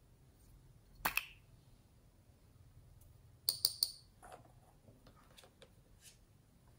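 Small plastic glitter pot handled over the slime: a sharp double click about a second in as its lid snaps, then three quick sharp taps on the pot as glitter is shaken out, followed by a few faint light ticks.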